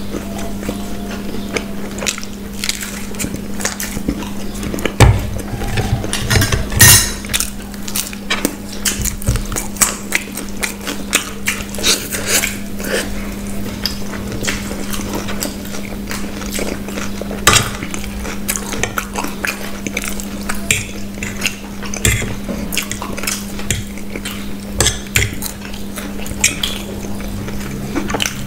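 Metal spoon and fork clinking and scraping on plates, mixed with biting and chewing of food, in many scattered sharp clicks, loudest about five and seven seconds in. A steady low hum runs underneath.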